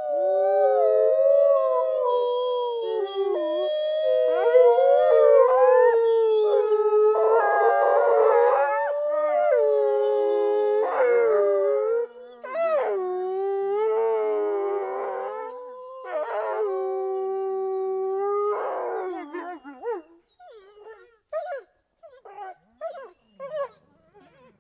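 A pack of wolves howling together, several long howls at different pitches overlapping and gliding up and down, some with a rough, harsh edge. Near the end the howls break up into short, scattered yips.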